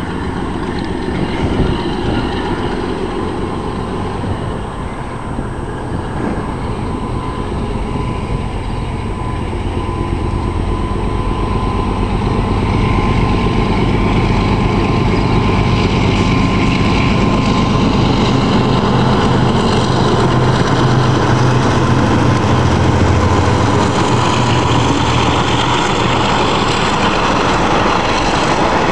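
DXB and DQ class diesel-electric locomotives hauling a coal train, their engines running with a low note that grows steadily louder as they approach. A thin steady whine runs over it for much of the time.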